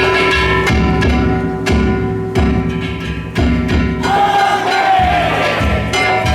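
Danjiri festival music: a large taiko drum struck about once a second, with hand gongs ringing over it.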